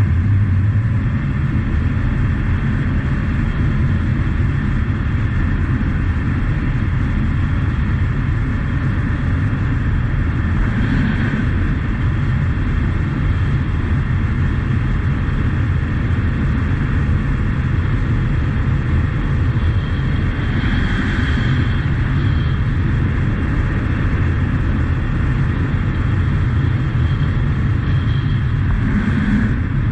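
Honda CT125 Trail's single-cylinder engine running steadily at cruising speed, mixed with wind rushing past and tyres rolling on gravel. The noise swells briefly a few times.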